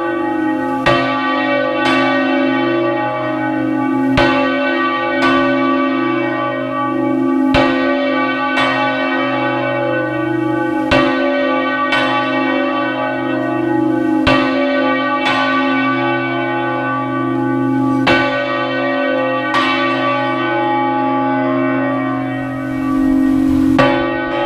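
A large church bell at Almudena Cathedral rung a volteo, swinging full circle on its yoke. The clapper strikes twice per rotation, the two strokes about a second apart, and the pairs come every three to three and a half seconds over a steady ringing hum. The strokes stop after about nineteen seconds as the bell comes to rest, and the ringing dies away.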